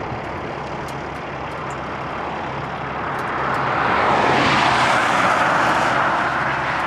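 Heavy diesel grain truck's engine idling steadily, with a broad rush of noise swelling up about three and a half seconds in and staying loud.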